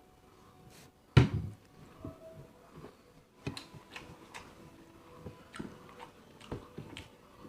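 Close-up eating sounds during a rice meal eaten by hand: one loud knock about a second in, then scattered small clicks and mouth sounds of chewing.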